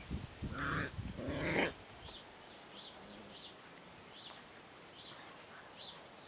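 Old English Sheepdog puppies cry out twice in quick succession in rough play during the first two seconds. Faint short high chirps then repeat about every two-thirds of a second.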